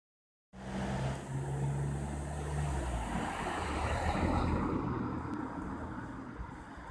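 A low, steady motor hum over a constant rushing noise; the hum fades out about three seconds in while the rushing goes on.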